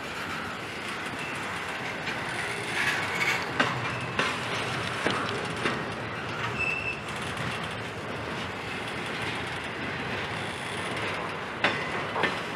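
Intermodal freight train's container well cars rolling past with a steady rumble of wheels on rail, broken by irregular sharp clicks and clanks. A brief high squeal comes from the wheels about six and a half seconds in.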